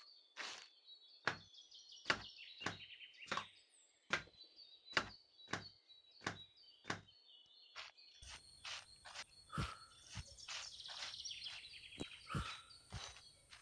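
Footsteps in sandals on a stony forest path and dry leaves, at walking pace, with birds chirping. About eight seconds in, a steady high-pitched hum joins.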